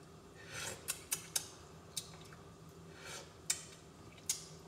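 Sauce being tasted from a spoon: a couple of soft sips and a handful of small, sharp clicks, all faint.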